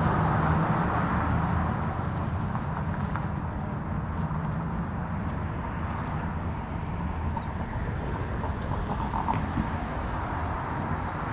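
Outdoor city street ambience: a steady low rumble of road traffic with a faint hiss above it, easing a little over the first couple of seconds.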